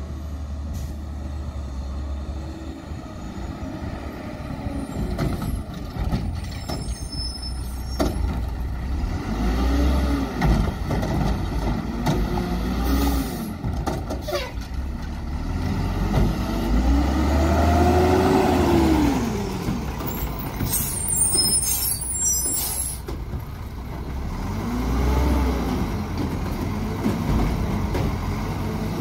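Mack LE garbage truck's diesel engine revving up and falling back again and again as it works the McNeilus Curotto-Can arm to lift carts, with short air-brake hisses about seven seconds in and again about twenty-one seconds in.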